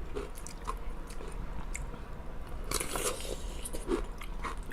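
Close-up chewing of a juicy pickle: wet crunching and biting, with scattered clicks and a louder crunch about three seconds in.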